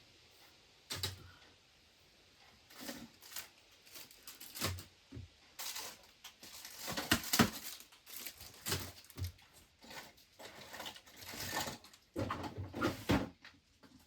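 Items being handled and sorted: irregular rustling, light knocks and clicks, busiest in the middle and stopping just before the end.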